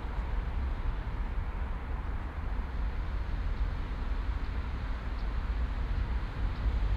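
City park ambience: a steady wash of distant traffic with a deep low rumble, and a few faint, short high chirps in the second half.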